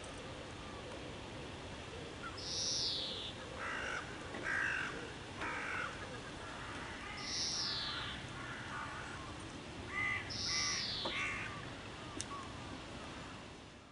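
Crows cawing: three bouts of short, harsh calls a few seconds apart, over a steady outdoor hiss.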